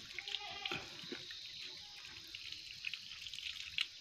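Water poured from a mug splashing and dripping over a freshly plucked chicken as it is rinsed and rubbed by hand, in scattered small splashes.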